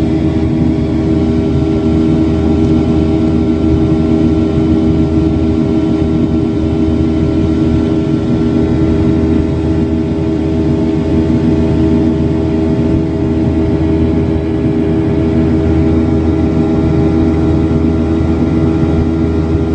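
Aircraft engines running at a steady pitch: a constant drone with several steady tones layered in it and no change in pitch or level.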